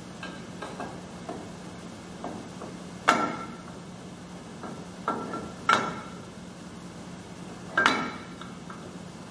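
Shear box and load-frame fittings knocking together as the box is seated in a direct shear load frame: a few sharp knocks with a brief ring, with fainter clicks between.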